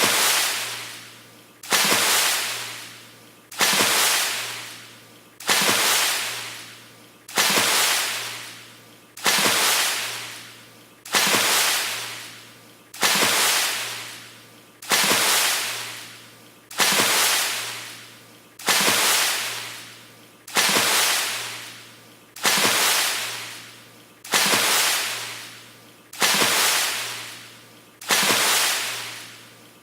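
The same water splash repeated over and over on a loop: one sudden splash about every two seconds, each dying away within about a second and a half.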